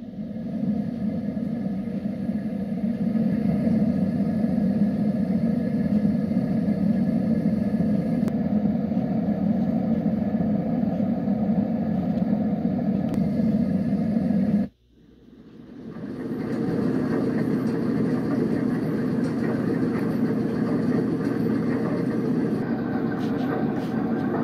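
Letsfit sleep sound machine playing a steady, low machine-noise sound through its speaker, fading in. About 15 seconds in it cuts out and a second, similar steady sound fades in as the next track is selected.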